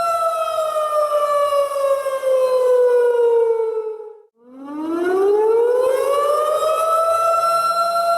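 Alarm siren wailing for an earthquake drill. A steady tone slides down in pitch for about four seconds and fades out briefly, then climbs back up and holds steady.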